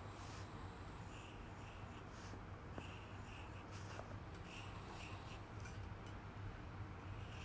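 Pencil scratching on paper in a series of short strokes as curls and lines are drawn, over a low steady hum.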